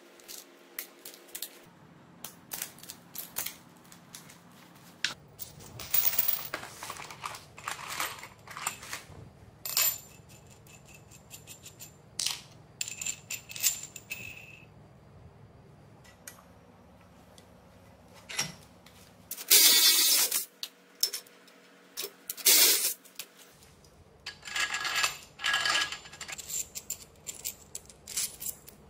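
Steel roller chain, sprockets, nuts and a threaded rod handled by hand, giving a run of separate metallic clicks and clinks. A few louder, denser rattles come a little past the middle.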